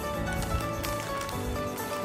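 Background music: held notes over a moving bass line, with a light beat.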